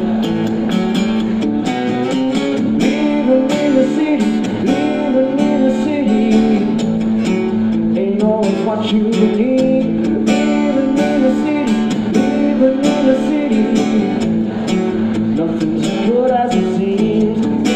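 Acoustic guitar playing a live blues-rock tune, strummed in steady rhythmic strokes over a sustained low note. A melody line slides up and down above it.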